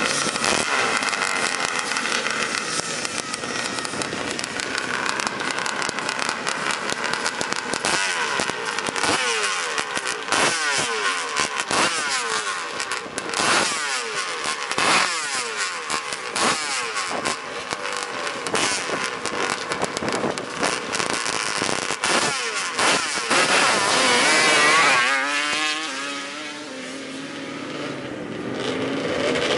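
Racing quad (ATV) engines revving in short throttle blips at a drag-race start line. About three quarters of the way through they open up at full throttle, the loudest part, then fall in pitch and fade as the quads run off down the strip. The sound builds again near the end.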